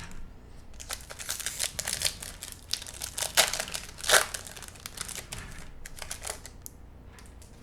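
A 2020 Bowman Chrome baseball card pack's foil wrapper being torn open and crinkled: a run of crackling rustles with a couple of sharper tearing snaps in the middle, dying down near the end.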